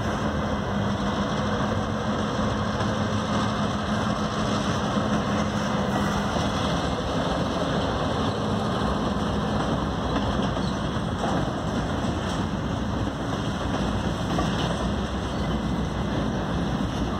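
Freight train of covered garbage containers rolling along the rails, a steady rumble with wind on the microphone. A low steady hum fades out about six seconds in.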